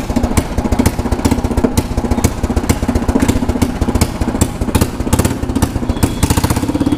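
Royal Enfield Bullet 350's single-cylinder engine running loud through a Kawasaki ZX-10R exhaust silencer, with a rapid, even beat and a few sharper cracks here and there.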